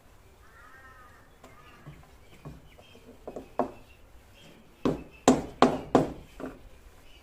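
Short, sharp wooden knocks: a couple of lighter taps, then a run of louder ones in the second half. A small wooden inlay piece is being tapped into place in a geometric wood panel with a white-handled chisel.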